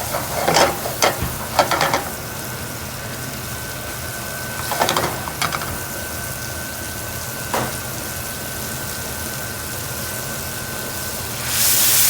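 Kitchen work sounds: several short bouts of clattering and a sharp click over a steady background hum, then a loud sizzling hiss starting near the end, like food hitting a hot pan.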